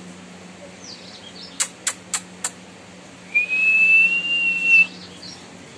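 Four quick, sharp clicks, then a single steady high whistle held for about a second and a half that rises slightly at its start; the whistle is the loudest sound.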